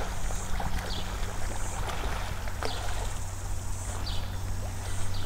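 River water flowing, with insects buzzing high over it and a short falling chirp every second or so.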